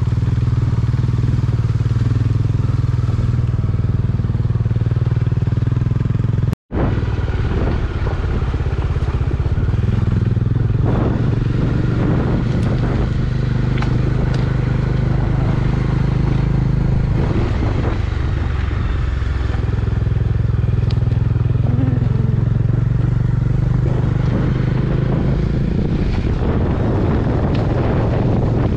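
Motorcycle engine running steadily under way, a constant low drone with road and rushing-air noise over it. The sound cuts out for an instant about a quarter of the way in.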